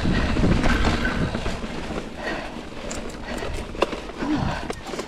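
Mountain bike rolling along a leaf-covered dirt singletrack: steady tyre noise and crunching leaves, with sharp knocks and clatter as the wheels and frame hit rocks and roots, the loudest knocks near the end.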